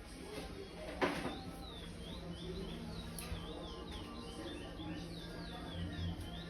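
Young curió (chestnut-bellied seed finch) singing the praia song type: a steady run of whistled notes, each rising and falling. A sharp knock about a second in.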